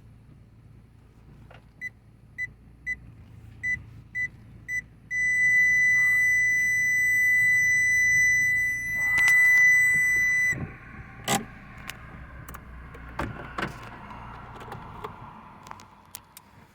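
Electronic beeper: six short high beeps about half a second apart, then one long steady beep of about five seconds that cuts off suddenly, followed by a few sharp clicks and knocks.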